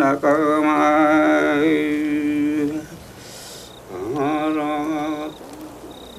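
Huichol ceremonial chant: a single voice singing long, wavering held notes in two phrases, breaking off about three seconds in and resuming for a little over a second.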